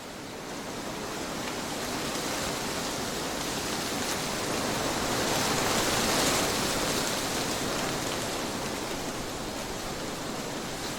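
Trade winds blowing in a steady rush that swells into a gust peaking about halfway through, then eases off.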